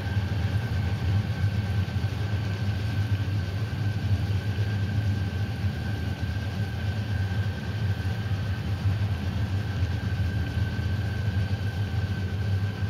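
A steady low droning rumble with a thin, constant high whine above it, unchanging throughout: an ambient sound-design drone.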